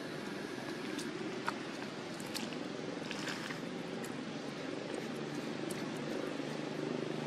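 Steady outdoor background hum from distant road traffic, with a few faint clicks and brief high chirps.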